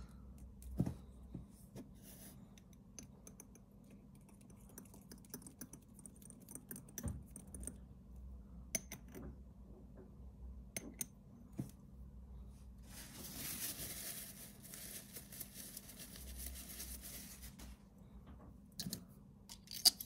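Quiet small clicks and taps of a metal-and-resin fountain pen being unscrewed and handled for refilling, with a soft hiss for about four seconds past the middle.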